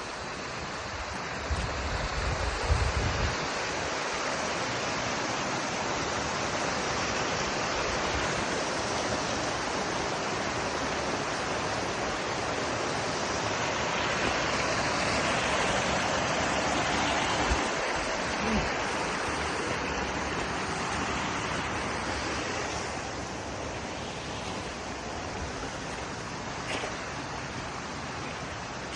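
Steady rush of fast-flowing water, swelling a little midway and easing toward the end, with a few low rumbles about two seconds in.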